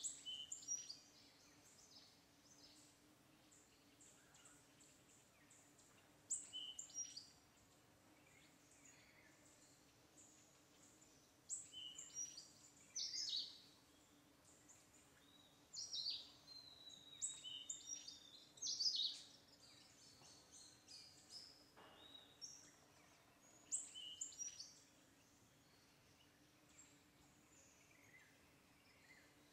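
Small birds chirping in short bouts of high, quick falling calls, spaced out with quiet gaps, over a faint steady low hum.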